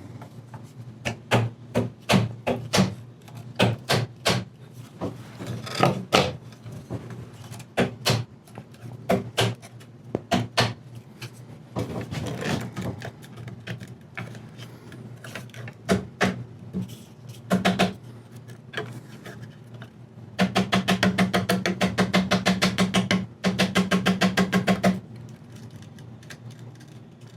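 Irregular sharp knocks and taps of wood on wood as the dried hide-glue joints of an old chair are worked loose. About twenty seconds in there is a rapid, even rattling buzz lasting about four seconds, over a low steady hum.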